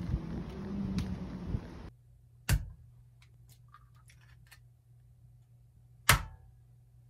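Wind buffeting the microphone for about two seconds, then two sharp knocks about three and a half seconds apart as eggs are cracked on the rim of a ceramic bowl, with small clicks of shell in between, over a faint low hum.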